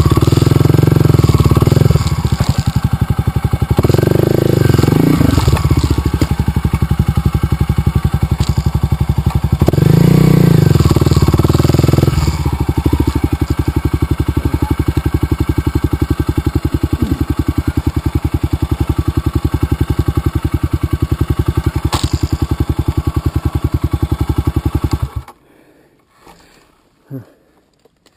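Dirt bike engine running at low speed, with louder bursts of throttle near the start, about four seconds in and about ten seconds in, then shut off abruptly about 25 seconds in.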